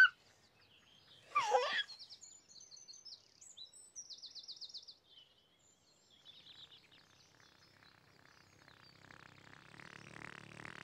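A baby giggles briefly at the start and again about a second and a half in. Then birds chirp faintly, with a quick trill around four seconds in. Soft music fades in near the end.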